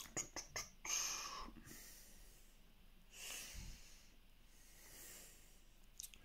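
Pen drawing short strokes on paper: faint scratchy bursts, each under a second, come and go a few times, with a few light clicks near the start and the end.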